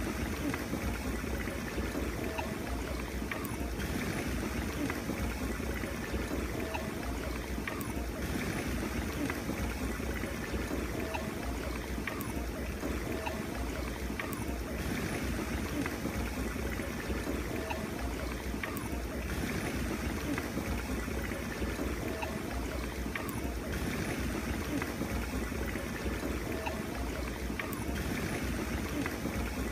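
Water bubbling and fizzing steadily in a small dug pit, its surface frothing white as a powder reacts in it.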